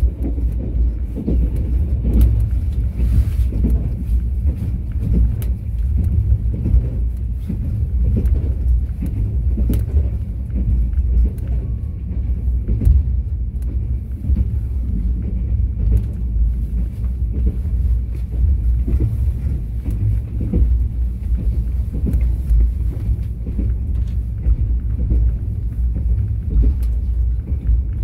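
Mugunghwa-ho passenger train running along the track: a steady low rumble with faint, scattered clicks.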